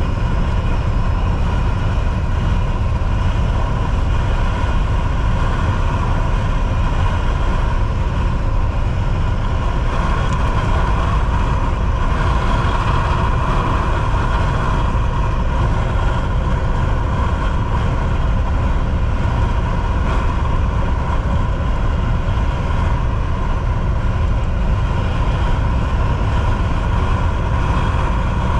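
Volvo VNL 760 semi truck cruising at highway speed: steady engine drone mixed with tyre and road noise, with a steady mid-pitched hum that swells slightly for a few seconds partway through.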